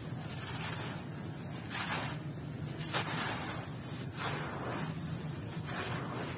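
Dry, gritty clumps of sand and fine gravel crumbling in the hands and pouring onto a gritty floor: a grainy hiss that comes in about four short bursts, with a sharp crack of a breaking lump about three seconds in. A steady low hum runs underneath.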